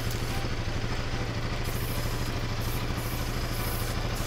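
A Yamaha off-road engine idling steadily, a low, even, rapid putter that stays the same throughout.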